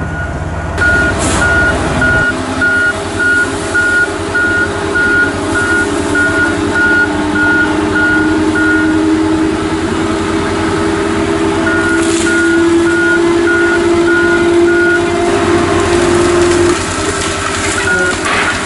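Backup alarm on a wheeled feller buncher beeping about twice a second, pausing for a few seconds midway and starting again near the end, over the machine's diesel engine, whose note rises steadily through the middle and drops away about 16 seconds in.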